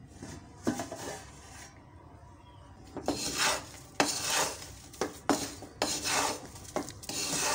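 Wooden spatula stirring potatoes through hot salt in a wok: a run of gritty scraping strokes, about two a second, starting about three seconds in after a couple of faint knocks.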